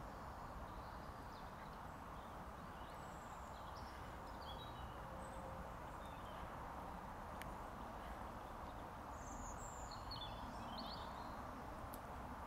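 Quiet open-air ambience: a steady low hiss with a few short, high bird chirps, a few seconds in and again near the end.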